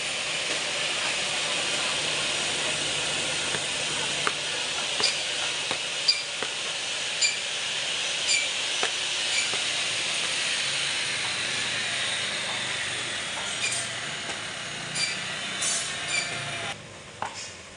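Electric meat band saw running steadily while cutting through meat and bone, with a faint tick about once a second. The sound cuts off abruptly near the end.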